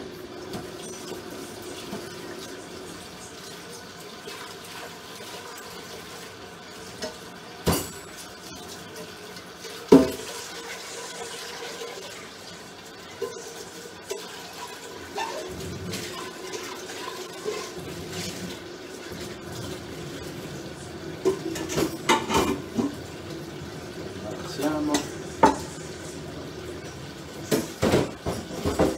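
Washing up at a kitchen sink: pots, dishes and cutlery clank against each other in scattered knocks, loudest about ten seconds in and bunched near the end, over water running from the tap.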